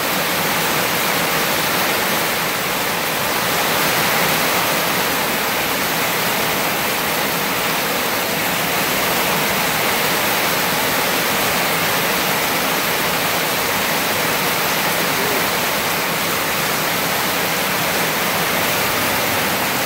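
Heavy rain pouring down: a steady, dense hiss of a hard downpour, with water running off the roof edge.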